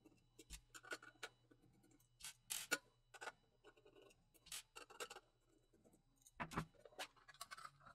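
A screwdriver backing screws out of a load box's metal case: faint scattered clicks and small metallic scrapes, with a few sharper taps about two and a half seconds in and again near six and a half seconds.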